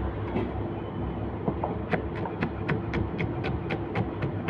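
Kitchen knife chopping yellow bell pepper on a cutting board: a few soft knocks, then from about two seconds in quick, even chops at about four a second, over a steady background hum.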